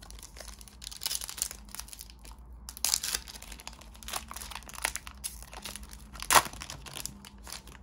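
Trading-card pack wrapper crinkling and cards rustling as they are handled, an irregular run of short crackles with the loudest about six seconds in.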